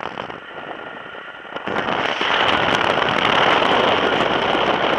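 Airflow buffeting the camera's microphone on a tandem paraglider in flight, a rough crackling rush that grows much louder about two seconds in.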